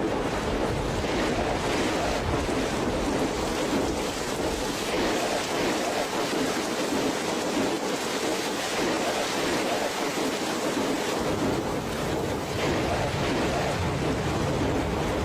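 Steady rush of fast-moving floodwater, with wind noise on the microphone.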